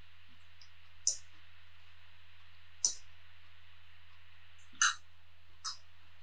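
Eating sounds at a close microphone: four short, sharp clicks spread over a few seconds, the one about five seconds in the loudest, over a steady low electrical hum.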